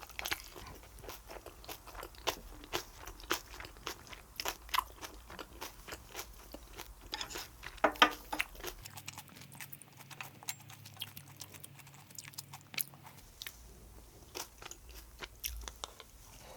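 A person chewing and biting food close to the microphone: irregular, crisp mouth clicks and crunches throughout.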